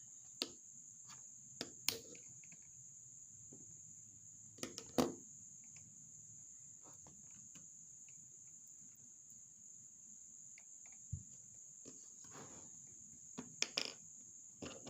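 Scattered clicks and knocks of a tool and fingers working on the plastic underside of an HP 15 laptop, prying at its rubber feet. The loudest knock comes about five seconds in, with a cluster near the end, over a steady high-pitched whine.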